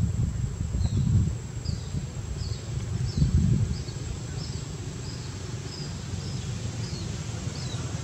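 A bird calling a steady series of short, high, falling chirps about every half second, over low wind rumble on the microphone that is strongest in the first half.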